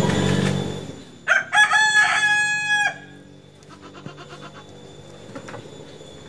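A rooster crows once, about a second in: one call of about a second and a half that rises at the start, holds, then breaks off. Before it, a low rumble fades away.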